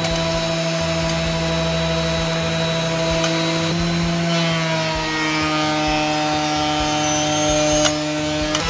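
Benchtop thickness planer running as an end-grain cutting board in a sled of wooden strips feeds through it, the cutterhead planing the end grain. A steady motor whine that dips slightly in pitch about four seconds in, with a short click near the end.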